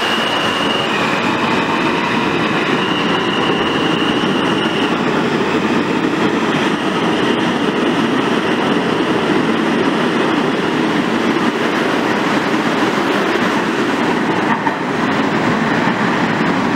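New York City Subway R160 train pulling out of an underground station: a steady loud rumble and hiss of wheels on rail, with a high electric motor whine that shifts in pitch over the first few seconds.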